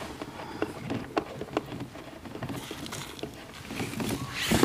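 Small plastic clicks and handling noises as the lid on top of a Masand 16-litre battery sprayer's plastic tank is fitted and closed, with a louder rustling scrape building near the end.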